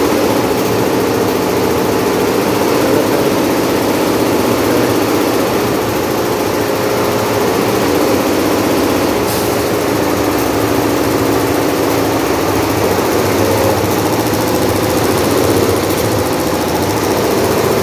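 Multi-head computerized embroidery machine stitching at about 930 rpm, its needle heads running in a steady, rapid mechanical clatter.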